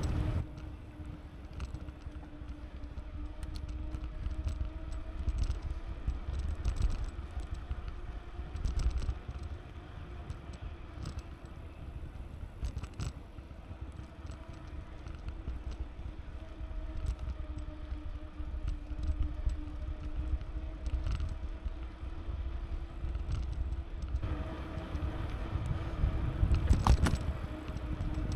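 Bicycle riding along a paved trail: wind on the microphone and tyre rumble, with a steady low hum and scattered light clicks and rattles. The rumble grows louder about four seconds before the end.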